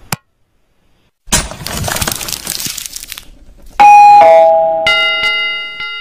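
Subscribe-animation sound effects: a short click, then about two seconds of a noisy crash-like whoosh, then a loud two-note ding-dong, the second note lower, followed by a bell chime that rings on and fades.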